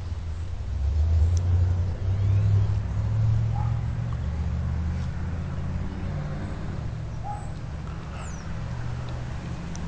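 Low rumble of a motor vehicle's engine running nearby, swelling in the first few seconds and then easing off, with a few faint bird chirps.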